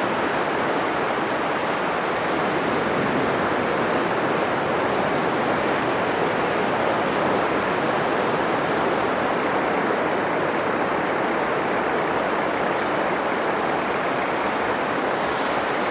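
Atlantic Ocean surf breaking on a beach: a steady, even wash of wave noise with no single crash standing out, and a brighter hiss near the end.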